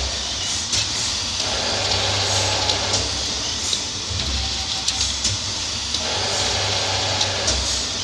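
Saw-blade polishing machine running: rotating wire brushes scrub steel circular saw blades on turning tables with a steady hiss over a low hum. A harsher scraping sound swells twice for a second or two. Light clicks come as the blades are handled.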